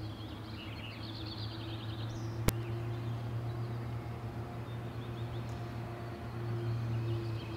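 Sport Quad with 14-inch props heard from the ground as it descends to land: a steady low hum from its motors and props with a fainter higher tone above it, growing a little louder near the end. Birds chirp, and there is one sharp click about two and a half seconds in.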